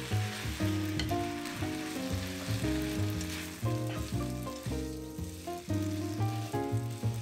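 Wide rice noodles sizzling in a hot pan as they are stir-fried in soy sauce and tossed with chopsticks, with background music playing over it.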